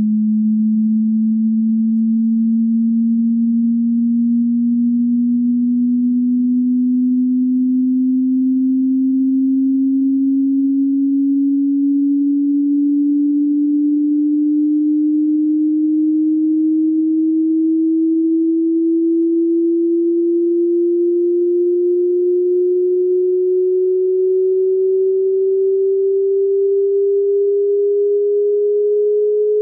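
A single pure test tone from a hearing-test frequency sweep, gliding slowly and steadily upward in pitch at an even loudness, rising by about an octave.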